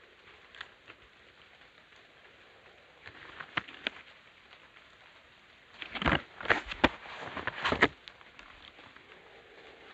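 Handling noise close to the microphone: gloved hands rustling and tapping a cardboard firecracker box. A few scattered clicks, then a louder run of crackling rustles about six seconds in that lasts some two seconds.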